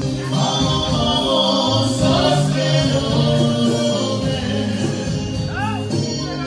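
Live Roma band music: a man singing through a microphone over an electronic keyboard, with a few sliding vocal ornaments near the end.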